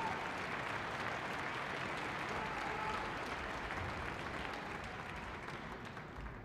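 Concert audience applauding, the clapping slowly dying away.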